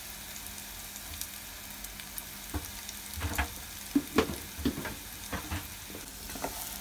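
Chopped onion, garlic and ginger sizzling in oil in a saucepan, with ground cumin and coriander just added. From about two and a half seconds in, a wooden spatula stirs the mixture, knocking and scraping against the pan several times.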